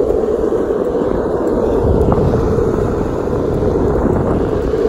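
Longboard wheels rolling fast on asphalt: a loud, steady, low rolling noise.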